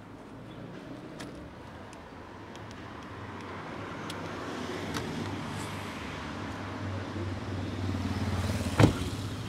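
A motor vehicle's engine running with a steady low hum that grows gradually louder, with scattered light clicks and one sharp knock shortly before the end.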